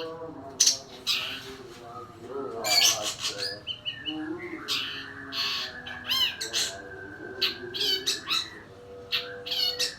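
Young long-tailed shrike (pentet) singing a varied run of harsh, squawky notes and short chirps mixed with pitched sweeps, including a held whistled note in the middle. These are its 'tembakan', sharp shot-like bursts of song.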